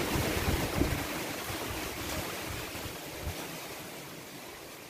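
Wind buffeting the microphone outdoors, with a steady rushing noise; the gusts are strongest in the first second or so and ease off toward the end.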